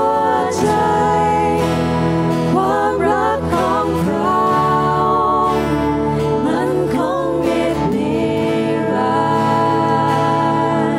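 Live worship band playing a slow worship song: keyboard and guitars under a singing voice.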